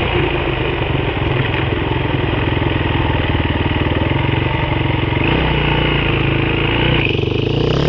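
Off-road vehicle's engine running steadily under throttle. Its pitch changes about five seconds in, and it eases off near the end.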